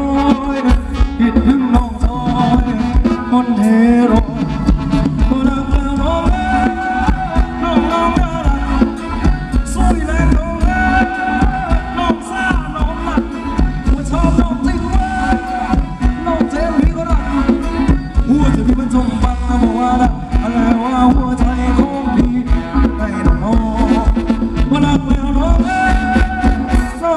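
Thai ramwong dance music from a band, with a steady driving beat and a melody line over it.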